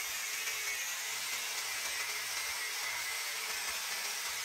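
Angle grinder with a thin cut-off disc cutting through a steel pipe, a steady high-pitched whine over a grinding hiss.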